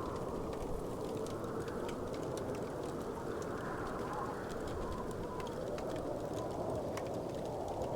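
Wood fire crackling in a fireplace: scattered small pops and snaps over a steady low rumble.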